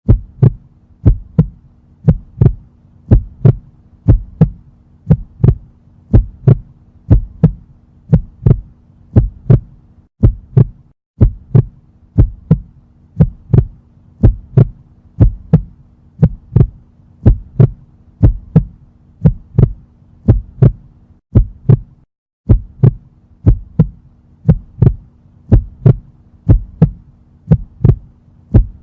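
Heartbeat sound effect: a steady run of paired lub-dub thumps, about one beat a second, over a faint steady hum. The beat and hum break off briefly twice, about 11 and 22 seconds in, where the loop restarts.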